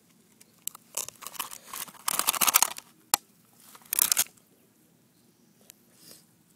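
Burst aluminium can of frozen diet root beer crackling and crinkling in bursts, the loudest a bit past two seconds in and another about four seconds in, with a single sharp click just after three seconds.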